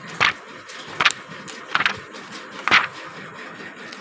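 Pages of a thick hardback book being flipped, paper swishing about four times, roughly once a second.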